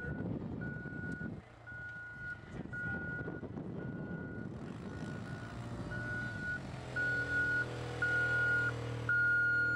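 A vehicle's reversing beeper sounding about once a second in even half-second beeps, over the low hum of its engine. Beeps and engine both grow louder over the last few seconds.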